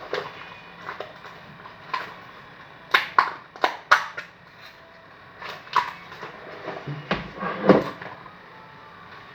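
Homemade slime being handled and squeezed, giving irregular sticky pops and clicks, with a cluster of sharp snaps a few seconds in and a longer, heavier squelch near the end.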